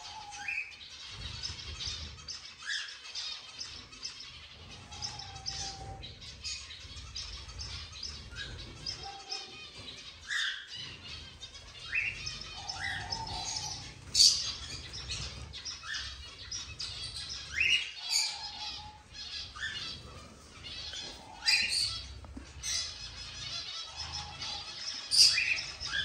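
A mixed aviary of small cage birds (finches, canaries, cockatiels) chirping and calling over one another, with frequent louder sharp calls and short whistled notes cutting through the chatter. A low rumble runs underneath.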